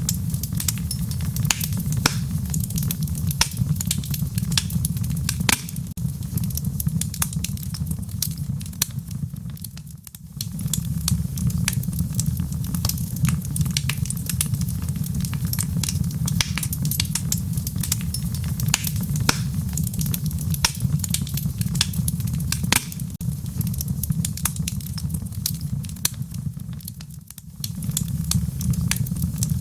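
Wood fire burning in a fireplace: a steady low rumble of flame with frequent sharp crackles and pops. The rumble briefly drops twice, about ten seconds in and near the end.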